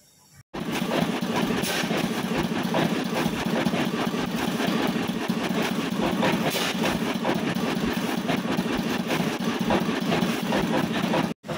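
Several vintage stationary engines running together, a steady, fast mix of overlapping exhaust and mechanical beats. It cuts in abruptly about half a second in and stops suddenly just before the end.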